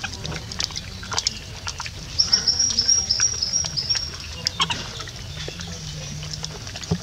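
A bird calling in a quick run of short, high, even chirps, about six a second, lasting about two seconds from roughly two seconds in, over scattered faint clicks.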